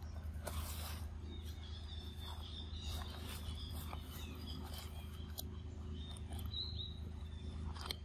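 Outdoor ambience: scattered short rustles and clicks over a steady low hum, with faint, wavering high-pitched chirps from birds or insects through much of it.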